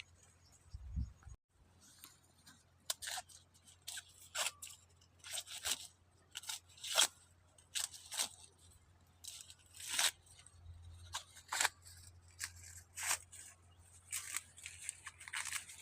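Dry corn leaves and husks crackling and tearing in short, crisp strokes that come irregularly about once a second, as ears of corn are picked.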